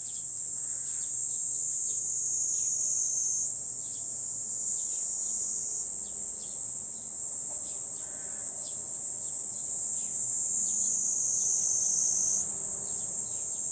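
Insects droning in one steady, high-pitched buzz, with faint short chirps repeating under it.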